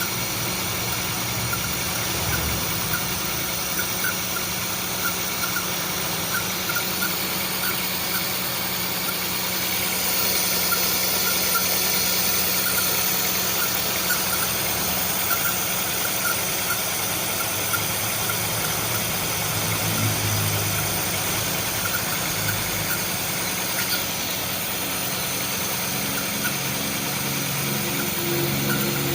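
Honda City i-DSI four-cylinder petrol engine idling with a misfire: a steady running sound broken by small, irregular knocks.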